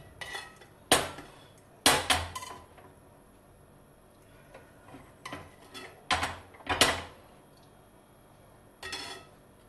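Steel ladle clinking against a cooking pan and a glass serving bowl as sauce is ladled in: a handful of sharp clinks, about five, with quiet gaps between.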